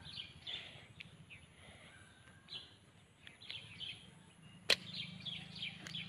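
A single sharp snap of a slingshot being shot, a bit past the middle, over many short bird chirps throughout.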